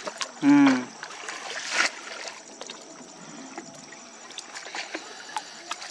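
A short vocal sound about half a second in. Then a hand stirs through a plastic crate of small wet fish: soft scattered clicks and a brief rustle over faint water.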